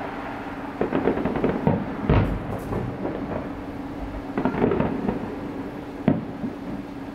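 Distant aerial fireworks shells bursting: a series of booms with crackling between them, the deepest and loudest about two seconds in, more a little before five seconds and near six seconds.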